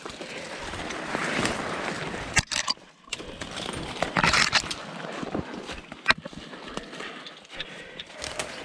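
Footsteps crunching through dry fallen leaves, with brush and branches swishing against clothing, and a few sharp cracks.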